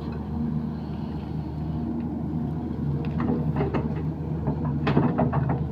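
Excavator's diesel engine running steadily, with a quick series of sharp knocks from about halfway through.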